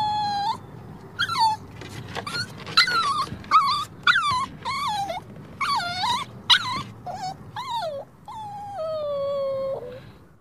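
Puppy whimpering and whining: about a dozen short high cries, most sliding down in pitch, then one long drawn-out whine that falls slowly near the end.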